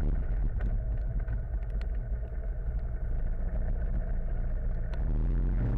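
Motorcycle running on the road, a steady low rumble with a few sharp ticks. Electronic music comes back in near the end.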